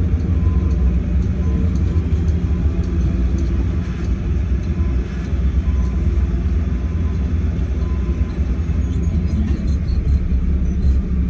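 Mack MP7 diesel engine of a Mack Granite dump truck running steadily, a low rumble heard from inside the cab.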